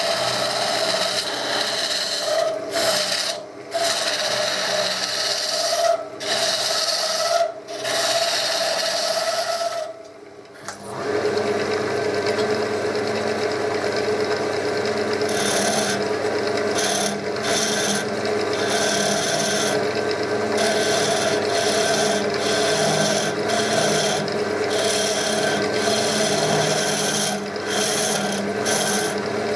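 Chestnut wood spinning on a wood lathe with a tool held against it: a steady rasping rub over the lathe's hum, broken by a few short gaps and a longer drop about ten seconds in, after which the hum sits lower in pitch.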